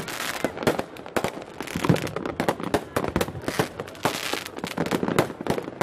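Fireworks going off in a dense, irregular run of sharp bangs and crackles, many overlapping.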